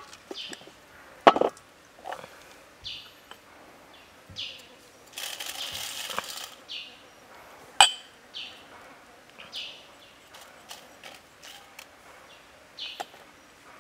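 Cut vegetable pieces clinking and knocking against a stainless steel tray, with dried chili flakes shaken from a small bowl hissing and pattering onto the metal for about a second midway, and a sharp clink of bowl or tray near the end.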